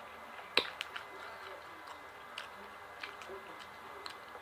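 Close-up eating sounds of someone chewing fried chicken: scattered wet clicks and smacks, the loudest a sharp click about half a second in.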